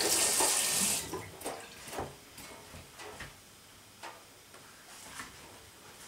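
Kitchen tap running into a stainless steel sink as hands are rinsed under it, stopping about a second in. Then a few faint clicks and knocks.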